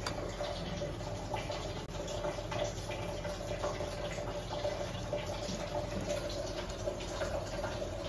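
Soft rustling and pressing of hands dusting a small ball of wheat dough in dry flour and shaping it with the fingers, with faint small clicks, over a steady hiss and a constant hum.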